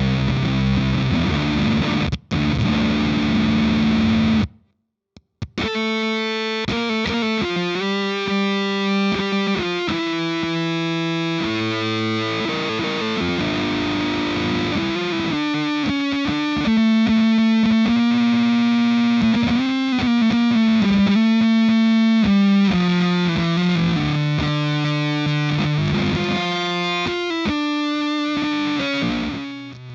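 Electric guitar played through a Rainger FX Dr. Freakenstein fuzz pedal into a Marshall Vintage Modern amp, with the pedal's heavy fuzz and built-in octave overtones. Thick fuzzed chords ring for about four seconds, there is a second of silence, and then a single-note riff.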